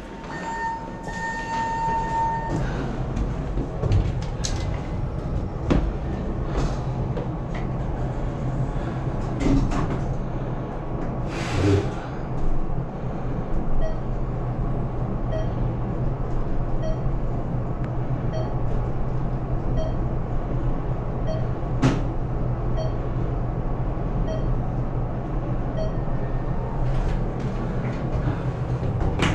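Elevator ride: a steady low running hum of the car, with a sustained chime at the start, a few knocks, and a faint beep repeating about once a second from about halfway through.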